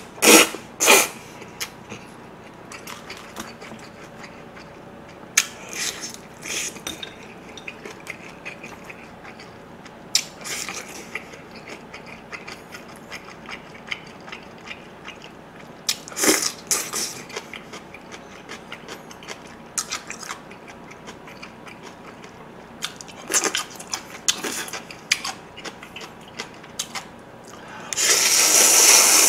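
Close-miked slurping of spicy cold bibim noodles in repeated loud bursts, with chewing and small clicks between them. The longest and loudest slurp comes near the end.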